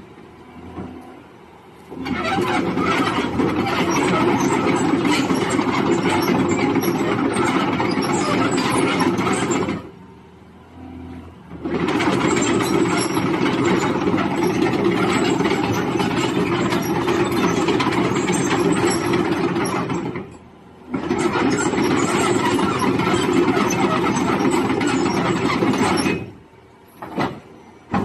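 Caterpillar 320 excavator's diesel engine and hydraulics working under load in three long loud stretches, dropping back to a quieter run between them.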